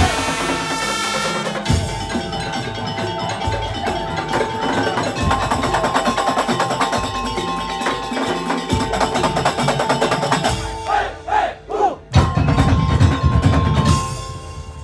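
Madurese tong-tong ensemble playing: wooden slit drums and tuned metal percussion in a dense, driving rhythm, breaking off briefly and starting up again near the end.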